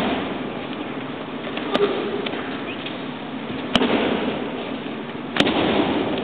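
Aikido breakfalls: the thrown partner's body and arm slapping the tatami mats, three sharp slaps about two seconds apart, over a steady hall background hum.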